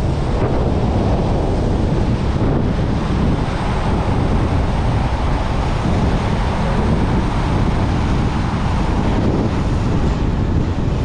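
A vehicle driving at road speed: a steady, loud rush of wind buffeting the microphone over low road and tyre noise.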